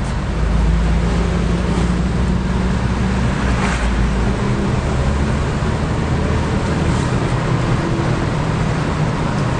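A car's engine running and tyres rolling on asphalt as it drives along, heard from inside the cabin as a steady low rumble that swells slightly in the first second.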